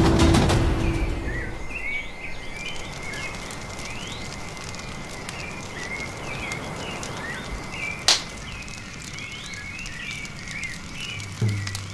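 Tropical forest ambience: many short chirping calls over a steady high insect drone, with a single sharp click about eight seconds in. Music fades out at the start, and low drum hits come back near the end.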